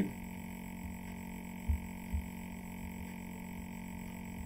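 Steady electrical hum, one level tone with fainter overtones, with two soft low thumps close together about two seconds in.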